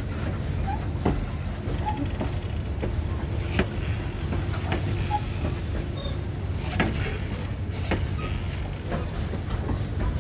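Steel passenger coaches rolling slowly past on jointed track: a steady low rumble from the wheels, with irregular sharp clicks and clunks about once a second and a few faint short squeals.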